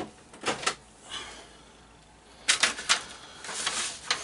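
Clicks and knocks from cables being handled and routed: a few sharp knocks at the start, a quick run of clicks about two and a half seconds in, and rustling clatter near the end.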